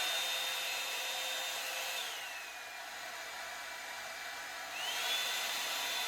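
Revlon one-step hair dryer brush running, its motor whining over the fan's rush of air. The whine drops in pitch about two seconds in as it is switched to a lower setting, then rises back up near the end when switched up again.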